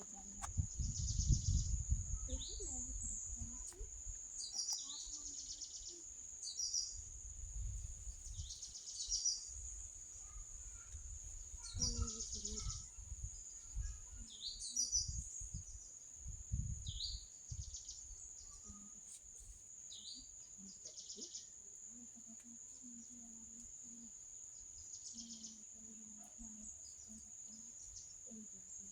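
Birds chirping in short calls every second or two over a steady, high-pitched insect drone. A low rumble comes and goes through the first half, loudest about a second in, and the chirps thin out in the last third while the drone runs on.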